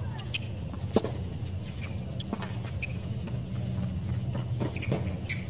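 Tennis ball struck back and forth with rackets in a rally: sharp single pops, the loudest about a second in and a few more later, over a steady low hum from the outdoor stadium.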